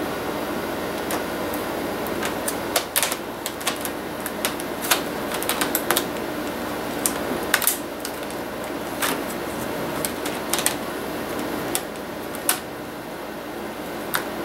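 Irregular sharp plastic clicks and snaps as a Sony VAIO laptop's plastic casing is pressed and worked along its edge by hand, over a steady hum.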